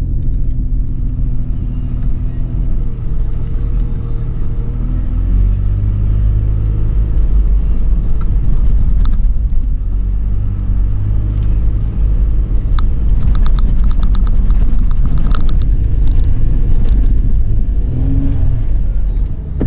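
Toyota 4Runner's 4.0-litre V6 engine working under load as the SUV climbs a sand dune, a loud low rumble that rises in pitch and grows louder about five seconds in. A run of rapid rattling clicks comes about two-thirds of the way through.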